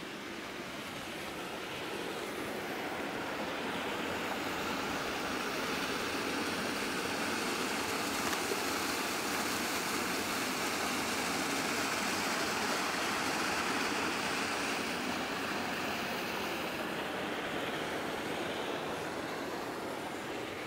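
Rushing water from a mountain stream or cascade, a steady hiss that swells to its loudest midway and then eases off.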